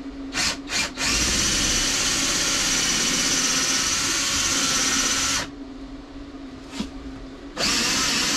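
Cordless drill boring shelf-pin holes into a cabinet side panel, stopping short of going all the way through. It gives two quick blips, then runs steadily for about four seconds, blips once more, and starts another run near the end.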